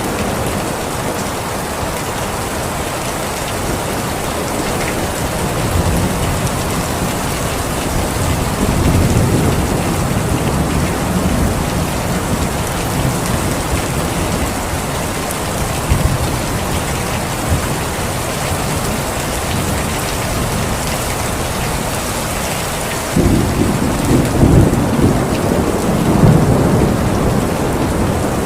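Steady heavy rain with thunder rumbling low through it: a softer roll in the first third, and a stronger rumble that breaks in suddenly near the end and lasts a few seconds.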